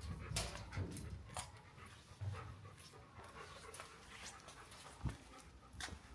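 German shepherd panting, with a few sharp crackles in between.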